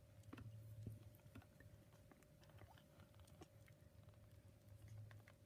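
Faint small wet clicks and smacking from newborn Bengal kittens suckling, over a low, uneven hum.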